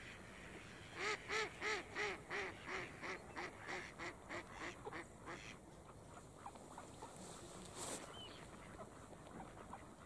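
A hen mallard's descending quack series: about sixteen quacks at roughly four a second, loud at first and growing softer over about four seconds. A few faint calls follow, with a short rushing noise about eight seconds in.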